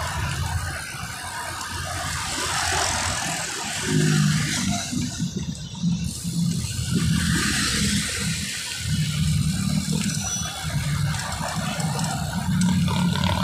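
City street traffic with vehicle engines running, heard from a moving bicycle, with an uneven low rumble of wind on the microphone.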